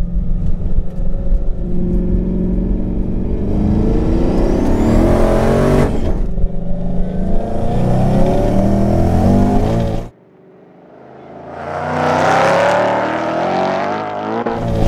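Supercharged Ford Mustang GT's 5.0 V8 at full throttle, heard from inside the cabin. Its pitch climbs, dips briefly about six seconds in, then climbs again. It cuts off suddenly about ten seconds in, and the racing Mustangs' engines are heard from trackside, swelling and then easing.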